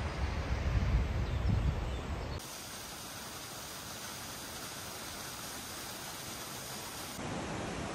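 Gusty wind rumbling on the microphone for about the first two seconds, then giving way abruptly to the steady rushing hiss of a waterfall pouring down a rock face.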